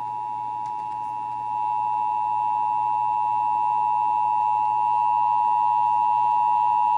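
Emergency Alert System two-tone attention signal, the 853 Hz and 960 Hz pair sounding together as one steady tone, getting louder about one and a half seconds in. It is the alert tone that announces an EAS activation, here a required monthly test, just before the spoken test message.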